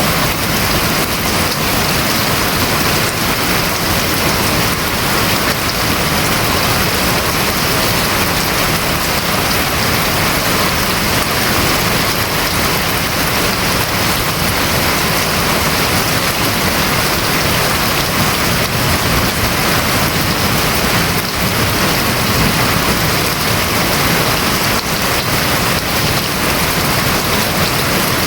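Steady heavy rain drumming on a house roof, an even dense patter without letup.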